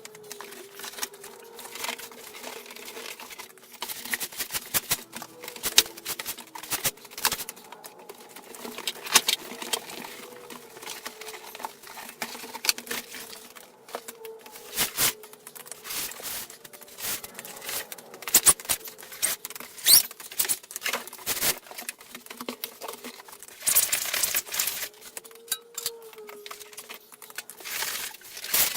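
Cardboard packing box being cut down and pulled apart by hand: irregular scrapes, clicks and crackles, with a short stretch of tearing near the end.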